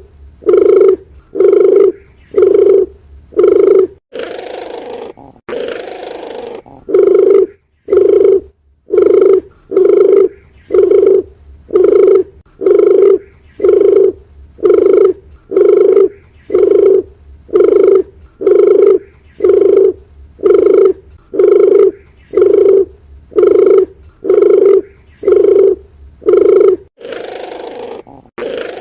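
Dove calls used as a bird lure: a long, even run of short, low cooing notes, about three every two seconds. A rougher, hissing rush sounds over them about four seconds in and again near the end.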